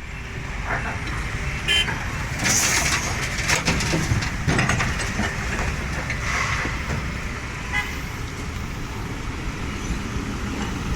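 Heavy construction vehicle's diesel engine running with a steady low rumble, with several short clanks and brief hisses on top between about a second and a half and eight seconds in.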